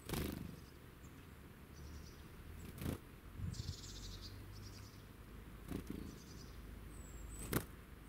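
Small woodland birds feeding right beside the microphone: a short flutter of wings as one flies off at the start, then three sharp taps spread through the rest. Brief high, thin bird calls come now and then.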